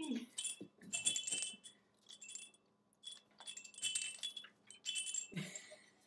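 Small bell inside a Lilliputiens soft fabric cow rattle jingling in a string of short, irregular bursts as the toy is shaken and pecked at by an African grey parrot.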